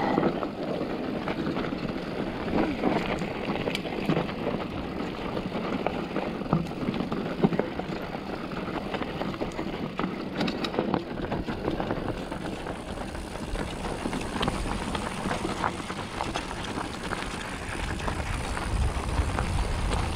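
2021 Polygon Siskiu N7 mountain bike riding a dirt trail: steady tyre noise over dirt and rock, with scattered clicks and rattles from the bike. A low rumble builds near the end.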